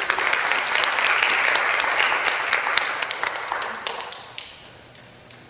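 Audience clapping after a song, many hands at once, fading out about four seconds in.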